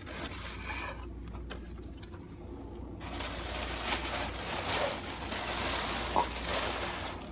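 Packaging rustling as a box is opened and its contents handled, growing louder from about three seconds in.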